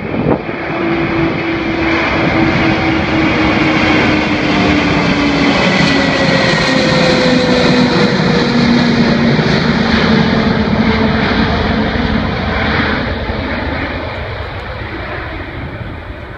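Antonov An-225 Mriya's six turbofan engines in a low fly-past: a loud jet rush that swells toward the middle as the aircraft passes, its engine tones sliding down in pitch, then fading as it flies away.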